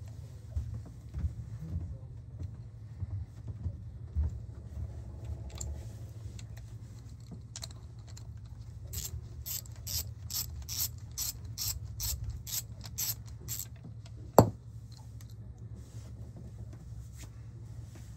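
Hand ratchet clicking in a steady run of about three clicks a second for several seconds, then one sharp metal clack, over a steady low hum. Scattered light taps of tools on metal come before the run.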